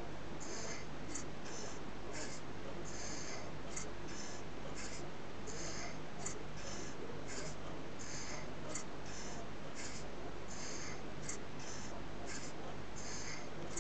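Small brass model V-twin engine, fed through a hose, running slowly: short hissing exhaust puffs about twice a second in a slightly uneven rhythm, over a steady low hum.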